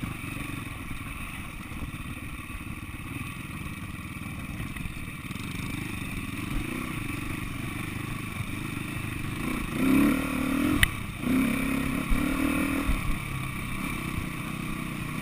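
SWM 300RS single-cylinder four-stroke enduro motorcycle running steadily at low speed, heard from on the bike. About two-thirds of the way through the engine note rises in a few short bursts of throttle, with a sharp knock among them.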